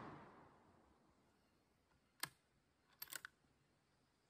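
Near silence: the last echo of a .223 Remington rifle shot fades away at the start. Then come one sharp click about two seconds in and a quick run of three or four metallic clicks about a second later, the rifle's bolt being worked to open it after the shot.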